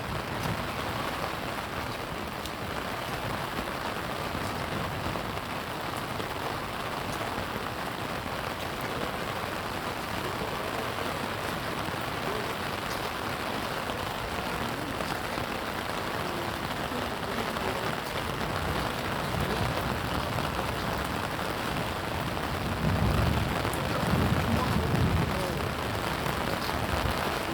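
Steady rain falling and pattering on surfaces, an even hiss. Some low rumbling swells up briefly near the end.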